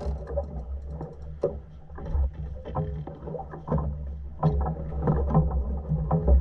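Boat engine running low and steady, with water splashing along the hull and scattered knocks and clicks from the deck and fishing gear.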